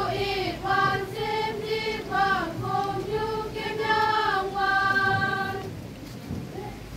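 A group of girls singing a dance song together in unison, in short phrases, then one long held note about five seconds in, before a short pause near the end.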